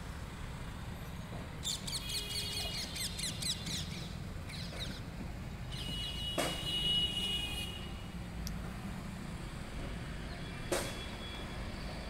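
Rose-ringed (Indian ringneck) parakeets calling in rapid, shrill chattering runs, about two seconds in and again around six seconds in, over a steady low background rumble. Two sharp clicks stand out, the louder one near the end.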